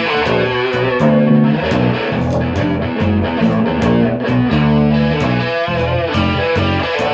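Rock music with distorted electric guitar, bass guitar and a steady drum beat.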